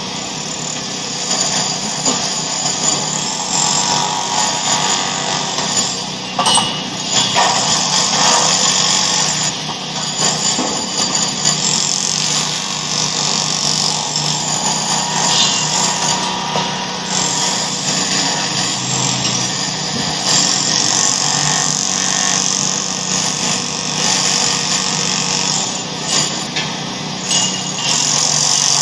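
A loud, unbroken racket of jumbled mechanical noise that keeps surging and dipping, like machinery and power tools going at once.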